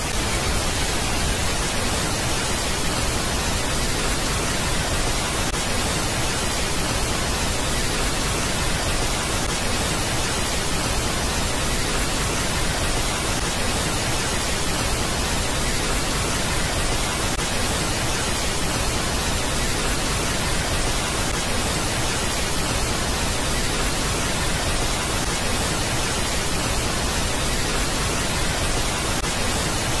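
Steady static hiss, an even rushing noise spread over all pitches that does not change, played as the 'sound' of Pluto's moon Nix.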